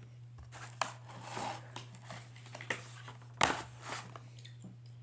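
Pokémon trading cards and their packaging being handled: a run of short crinkles and rustles, the loudest about three and a half seconds in, over a steady low hum.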